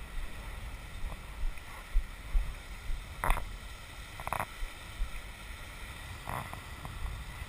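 Kayak paddle splashing into the water three times, short watery splashes a second or two apart, over a low rumble of wind buffeting the microphone.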